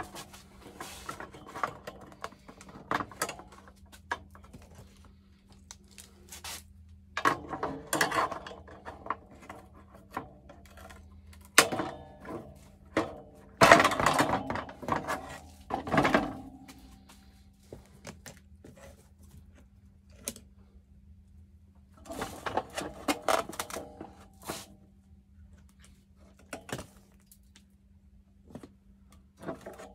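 Hand work on a mower seat: scattered clicks and knocks with bouts of scraping, the sharpest knocks about twelve and fourteen seconds in, over a steady low hum.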